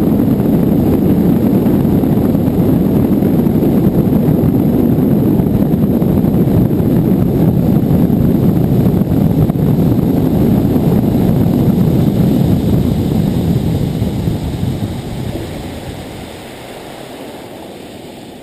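Bass boat running at speed: a loud, steady rush of wind and water noise, which dies down over the last few seconds as the boat slows off plane.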